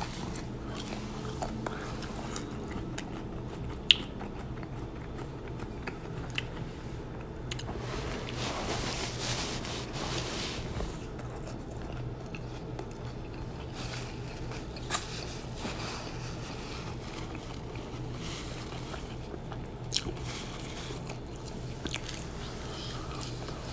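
A person biting and chewing crunchy fried shrimp tacos close to the microphone, with soft wet chewing and a few sharp clicks, the loudest about four seconds in. A steady low hum runs underneath.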